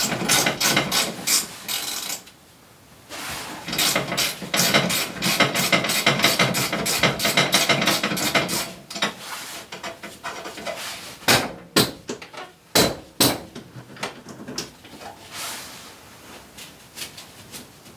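Hand ratchet wrench clicking in quick runs as nuts or bolts are backed off on a snowmobile's drive and skid. A few separate sharp metal knocks come about two-thirds of the way through.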